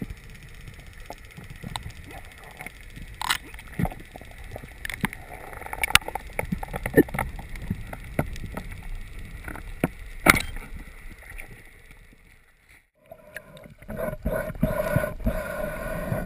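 Underwater sound picked up by a diving camera: scattered sharp clicks and knocks over a low rumble. A little past twelve seconds in it drops out briefly, then comes back with a steady hum and gurgling.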